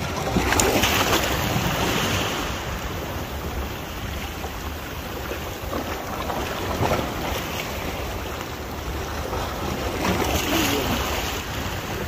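Black Sea waves washing and splashing against a stone pier wall. The wash swells about half a second in and again near the end.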